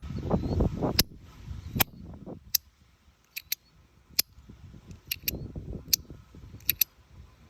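Compoform Astronaut Coin, a titanium magnetic slider fidget, snapping with sharp clicks as it is slid back and forth. There are about a dozen clicks, some in quick pairs, over a low rumbling noise.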